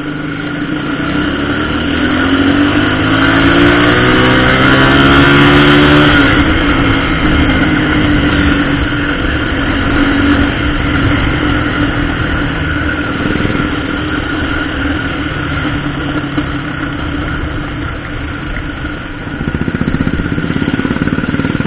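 Motorcycle engine running on the move, rising in pitch as the bike accelerates from about a second and a half in, loudest around five seconds in, then running steadily at cruising speed.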